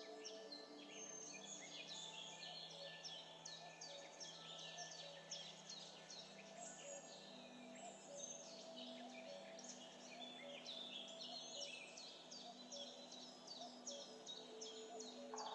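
Faint birds chirping constantly, over soft background music of long held notes.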